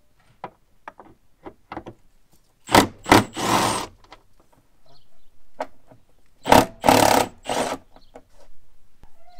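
Cordless drill-driver running in two short bursts of about a second each, backing out the screws that hold the engine's airbox and intake. Light clicks and knocks of handling the tool and parts come between.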